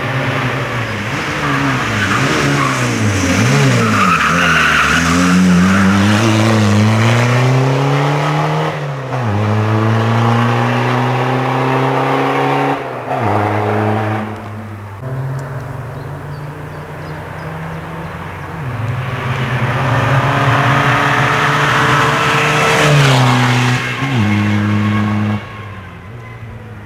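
Škoda Octavia TDI rally car's turbodiesel engine driven hard. Its pitch falls as it brakes into bends and climbs as it accelerates out, with sudden drops at each gear change.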